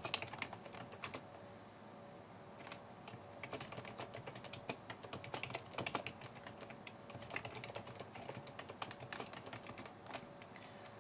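Typing on a computer keyboard: quiet, irregular keystrokes in short runs with brief pauses between them.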